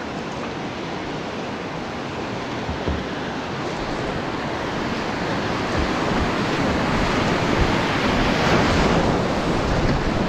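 Rushing whitewater of a river rapid, a steady hiss that grows louder as the kayak nears and reaches the breaking standing wave.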